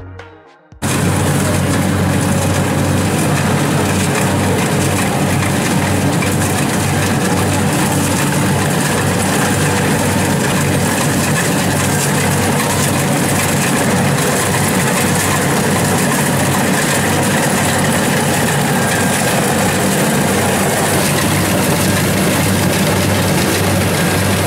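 Crawler rice combine harvester running at a steady working load as it cuts and threshes rice: a continuous heavy engine drone with a pulsing low throb and a dense machinery hiss. It starts suddenly just under a second in, as electronic music ends.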